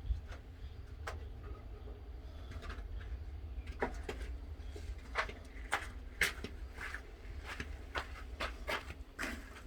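Irregular metallic clicks and clinks of hand tools working the bolt of a John Deere 566 round baler's chain tensioner pulley, growing more frequent about halfway through, over a low steady rumble.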